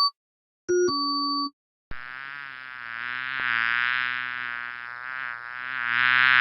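Electronic two-note chimes stepping down in pitch, like a transit announcement signal: the tail of one, then a full one about a second in. From about two seconds in comes a steady insect-like buzz, like a fly, that swells louder near the end.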